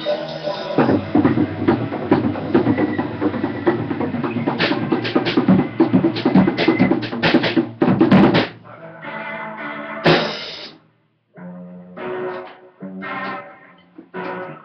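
A drum kit played hard with rapid cymbal crashes and bass-drum hits, together with a guitar. The drumming stops about eight seconds in, leaving short bursts of strummed guitar.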